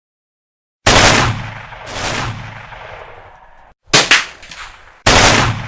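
Dubbed-in gunshot sound effects: after about a second of silence, a loud shot with a long decaying tail, a second about a second later, then a quick double crack near four seconds and another shot near the end, each clip cut off abruptly.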